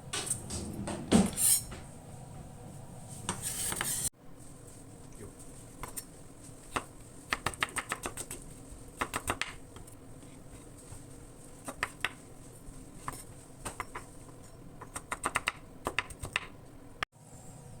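Kitchen work sounds: utensils and dishes clicking and clinking, some in quick runs of light taps, with a louder clatter in the first few seconds.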